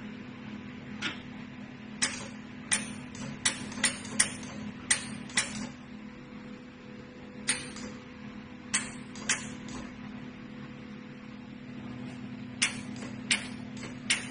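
Jewelry laser welding machine firing single pulses: a sharp snap with each shot, about fourteen at irregular intervals, some in quick runs, over the machine's steady hum.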